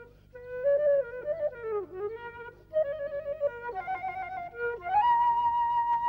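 Concert flute playing a slow unaccompanied melody. After a brief breath at the start, one phrase bends down in pitch and back up about two seconds in, then the notes step upward to a long held high note near the end.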